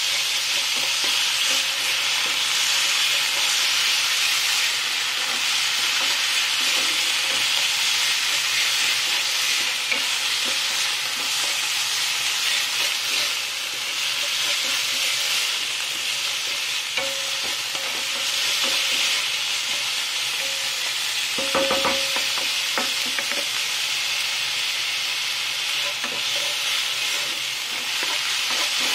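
Minced chicken and chopped garlic sizzling steadily in hot oil in a non-stick frying pan while being stir-fried with a wooden spatula. There is a brief knock about two-thirds of the way through.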